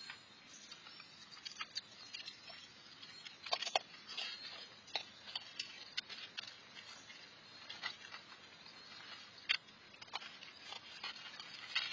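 Raccoons crunching dry food and pawing it about in a metal tray: irregular crisp clicks and crackles, with a few louder clacks about four seconds in and again near the end.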